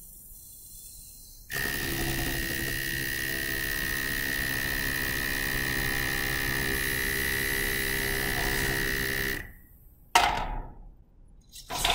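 Small electric motors of a robot's coffee-ground vacuum (jamming) gripper running steadily with a high whine for about eight seconds as the gripper grabs and lifts an object, then stopping. A short loud burst of noise follows about ten seconds in.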